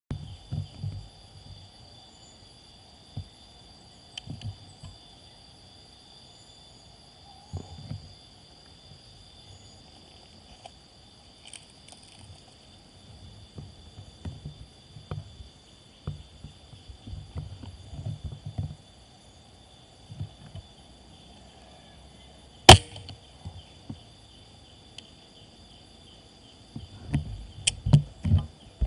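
An air rifle fires once, a single sharp crack about two-thirds of the way through. Around it are low bumps and rustles and a few smaller clicks near the end, over a steady faint high-pitched whine.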